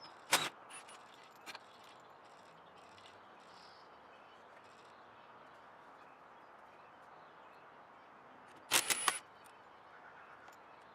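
Hand work on car interior plastic trim: one sharp click just after the start, then a quick cluster of clicks and clatter about nine seconds in, over faint birdsong.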